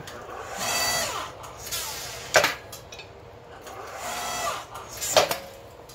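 Electric log splitter's motor and hydraulic pump, converted to a forge press, whining in two short runs, the first dipping slightly in pitch. Two sharp metallic strikes come about two and a half and five seconds in.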